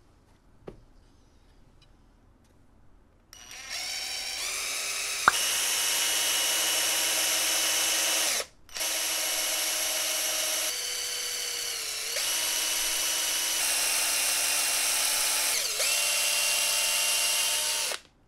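Small handheld cordless drill boring a hole into a wooden rack. The motor spins up with a rising whine about three seconds in and cuts out briefly near the middle. It runs on with its pitch dipping twice as the bit loads in the wood, then stops just before the end. It is a light-duty drill that works slowly through wood.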